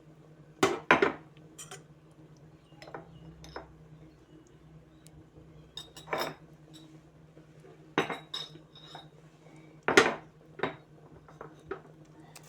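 A metal spoon knocking and clinking against a cooking pot in scattered strokes, the loudest about a second in and about ten seconds in, some with a brief metallic ring, over a faint steady low hum.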